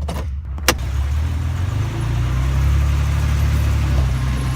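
Pickup truck engine running with a steady low hum under an even hiss, growing a little louder about two seconds in; a single sharp click comes near the start.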